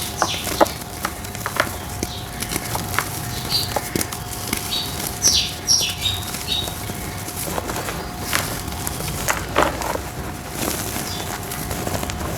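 Dry red brick dirt shapes being crumbled, with irregular crackles and crunches.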